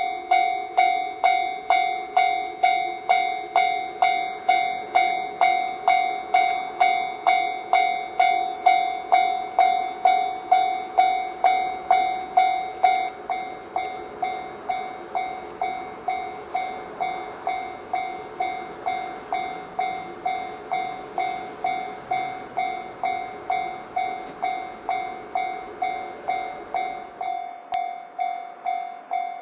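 Railway level-crossing warning bell ringing steadily, about two strikes a second. A second, lower-pitched bell rings with it until about halfway, and the noise of a steam-hauled train running past sits underneath. The train noise cuts off near the end.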